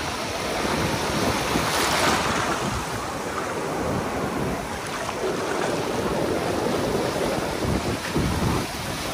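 Sea surf breaking and washing up a sandy beach: a steady rush of waves that swells about two seconds in, with wind buffeting the microphone.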